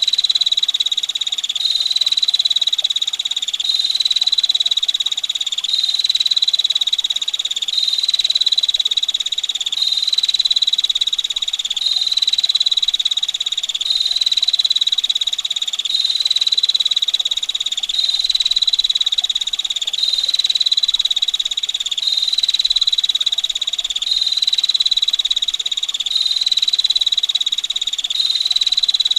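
Female prinia (prenjak) giving its rapid, buzzing rattle trill at one high pitch, repeated in phrases about every two seconds without pause, over faint running water.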